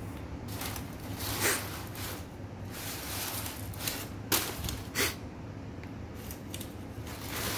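Crumpled brown packing paper crinkling and rustling as a cat moves through it, in irregular bursts, with two sharp crackles a little after four and five seconds in.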